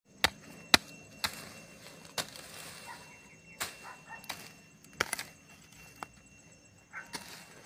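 Hand sickle chopping into weedy soil: about ten sharp strikes at an uneven pace, as roots and weeds are hacked out of the ground.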